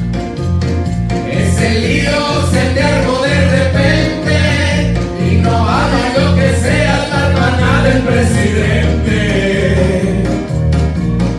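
Music: a song with singing voices over a steady bass line and beat.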